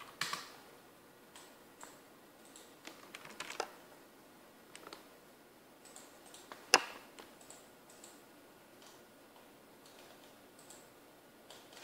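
Scattered clicks from a computer mouse and keyboard over faint hiss, with one sharper, louder click about seven seconds in.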